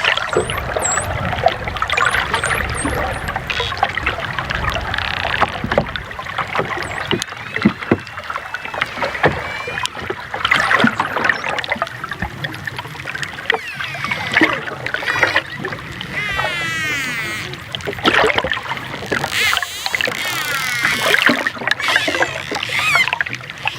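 Dolphins whistling and clicking over a constant rush of water: many rising and wavering whistles overlapping, with scattered sharp clicks, and a fast-warbling whistle about two-thirds of the way in.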